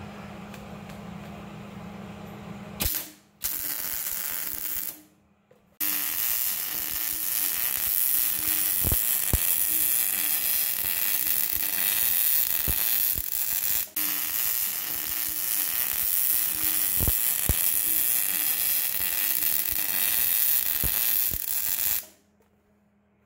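MIG welder arc crackling and hissing steadily as it lays a bead on steel tubing, with a few brief breaks where the trigger is released. A low steady hum comes before the arc strikes about three seconds in, and the welding stops near the end.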